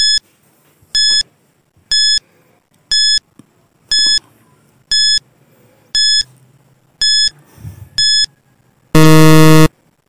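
Countdown timer sound effect: a short, high electronic beep once a second, nine times, as the on-screen clock counts down, then a longer, louder, lower buzzer about nine seconds in signalling that time is up.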